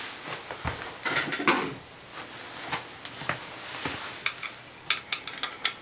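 Small metal parts of a bathtub faucet handle clicking and clinking as they are handled and fitted, with a quick run of clicks near the end.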